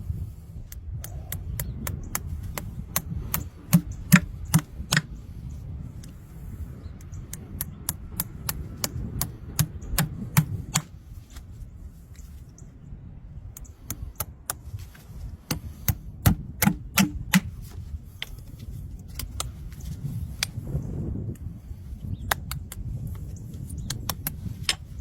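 Farrier's tools cutting and scraping a horse's hoof: runs of sharp clicks and snips in clusters over a low rumble, with a short pause midway.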